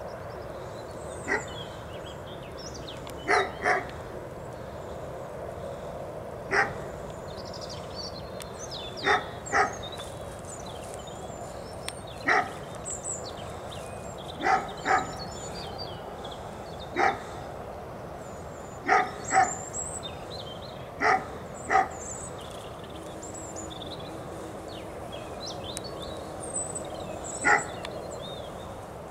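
A dog barking over and over, single barks and pairs of barks every two or three seconds, over a steady background hiss.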